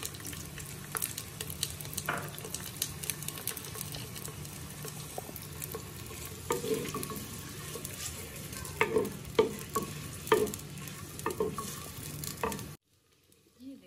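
Chopped onions sizzling in hot oil in a clay handi, stirred with a wooden spoon that clicks and scrapes against the pot, with a few louder knocks late on. The sound cuts off suddenly near the end.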